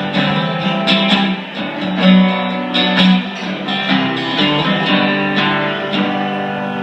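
Guitar playing a slow blues passage without vocals: plucked notes and chords struck about once a second and left to ring.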